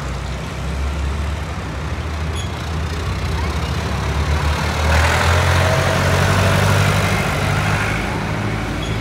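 Diesel tractor engines running as tractors drive past one after another. The rumble swells about halfway through as a red tractor passes close, with a faint rising whine, and a green John Deere tractor follows near the end.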